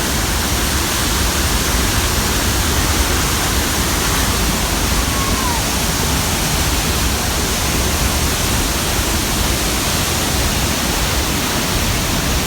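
A large waterfall close by, making a loud, steady rush of falling water with no let-up.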